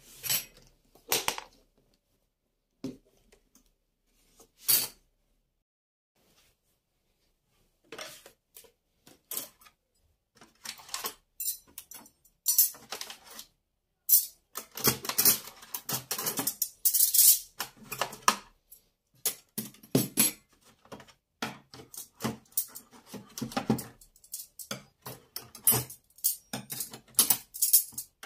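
Irregular clicks, taps and clatter of household objects being handled: a few separate knocks in the first seconds, then dense, uneven clattering from about eight seconds in.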